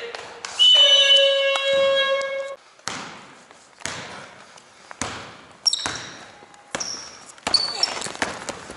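Basketball bouncing on a gym floor several times, with a few short high squeaks in between. Near the start a loud steady tone sounds for about two seconds.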